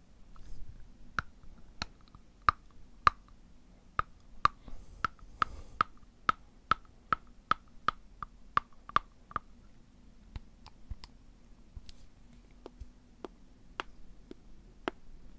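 Fingernails being bitten and chewed between the teeth: a run of sharp clicks, about two to three a second and quickening, then fewer, scattered clicks after about ten seconds.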